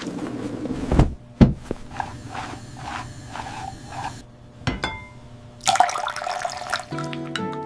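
Water running and splashing in short bursts, with two sharp thumps about a second in. Music comes in near the end.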